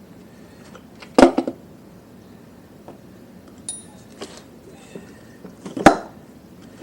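Metal motorcycle fork parts clinking and knocking as they are handled and set down: a quick cluster of knocks about a second in and one sharp clank near the end, with a few faint ticks between.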